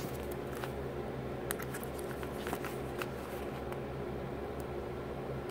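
Faint, scattered crinkles and ticks of a taped paper doll pillow being handled and turned in the hands, over a steady low hum.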